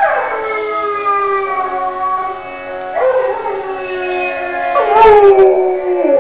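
Bernese mountain dog howling along with music: three long howls, each sliding down in pitch, the last one the loudest with a short harsh burst at its start.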